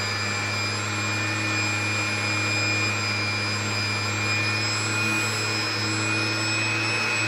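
Electric orbital sander running at a steady speed while the fuzzy edges of a small wooden segment are sanded against it, a constant hum with a steady high whine.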